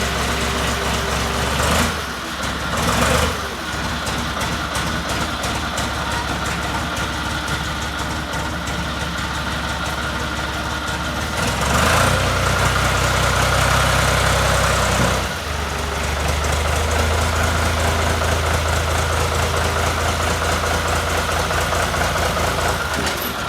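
Ford 1210 compact tractor's three-cylinder diesel engine idling steadily; about halfway through it runs louder for a few seconds, then drops back to a steady idle.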